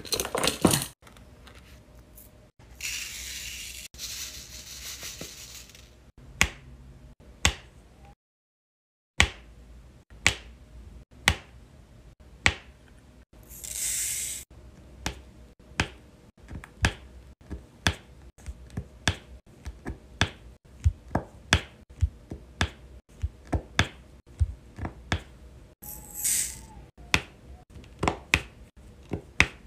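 Diamond painting pen tapping resin drills onto the adhesive canvas: a string of sharp clicks, roughly one to two a second, with a few short hissing rustles in between.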